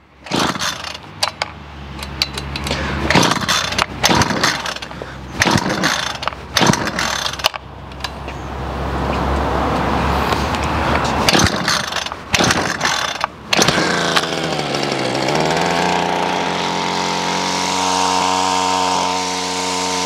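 Ryobi CS26 two-stroke string trimmer engine running on its first fire after a carburetor replacement. It runs unevenly with sudden dips at first, runs higher around the middle, then drops in pitch and settles to a steady idle near the end.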